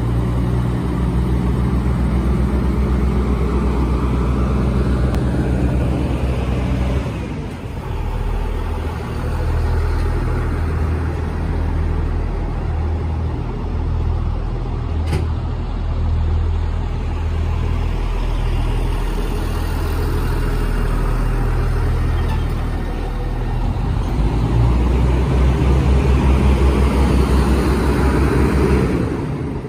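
Kiya 97 series rail-transport diesel railcar pulling away and passing at low speed, its diesel engines giving a steady low drone. The engine note changes about seven seconds in and swells again near the end as the rear power car passes, with a single sharp click about halfway.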